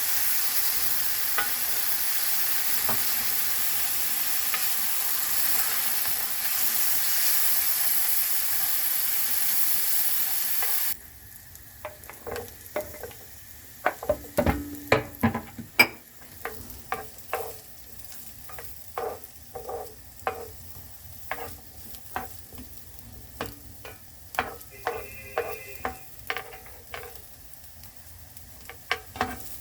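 Food sizzling in hot oil in a frying pan, a steady loud hiss that cuts off abruptly about eleven seconds in. After that, quieter irregular taps and scrapes of a utensil stirring in a pan.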